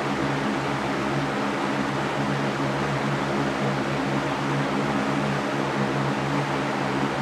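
Electric fan running steadily: a constant whoosh of moving air with a low motor hum of several steady tones beneath it.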